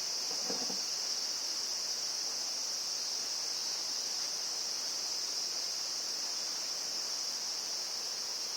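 A steady, unbroken high-pitched insect chorus of crickets or cicadas, with a few faint small knocks about half a second in.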